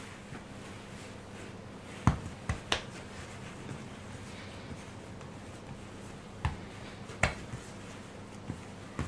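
Soft bread dough slapped and pressed against a wooden worktable by hand as it is rounded into a ball: about seven short, sharp slaps and thumps, the loudest about two seconds in.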